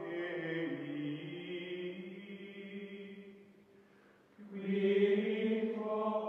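Outro music of long held, choir-like chanted chords. The chord fades down about three and a half seconds in, then a louder sustained chord comes in about a second later.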